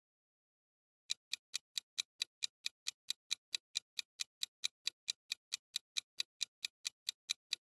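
Countdown-timer ticking sound effect: a fast, even run of clock ticks, about four to five a second, starting about a second in.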